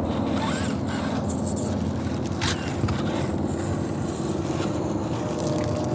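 Electric motor and drivetrain of a small RC crawler truck whirring as it climbs over loose dirt, with its tyres scraping and crunching on the soil.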